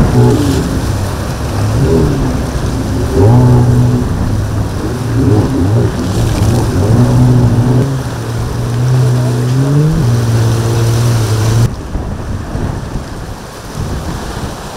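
Boat engine running and revving up and down over choppy water, with heavy wind rumble on the microphone. The sound drops suddenly near the end.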